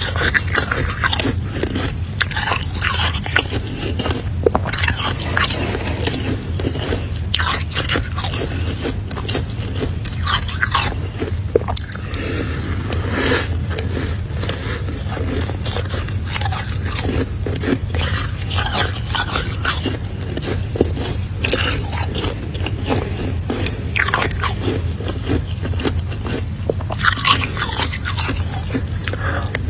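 Freezer frost being scraped up with a spoon and crunched between the teeth, a run of irregular crisp, crackly scrapes and bites over a steady low hum.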